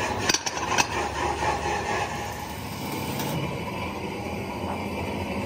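Steady workshop machinery noise, with a couple of sharp metallic knocks in the first second.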